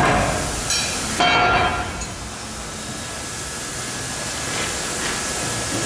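Steady hiss of several oxy-fuel cutting torches on a CNC gantry burning through steel plate. About a second in, a cut steel plate clanks and rings as it is handled.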